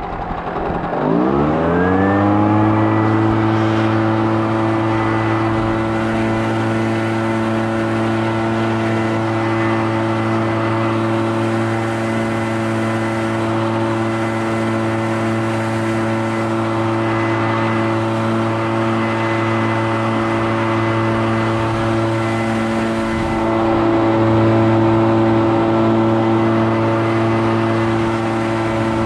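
Gas leaf blower engine revving up about two seconds in, then running steadily at full throttle.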